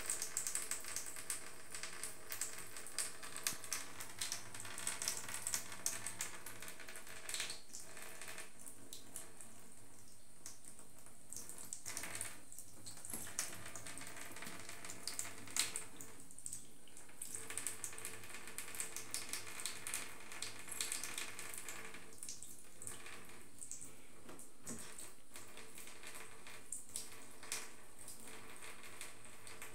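Thin stream of water running from a bathtub tap into the tub, with a steady trickle and small irregular splashes and drips.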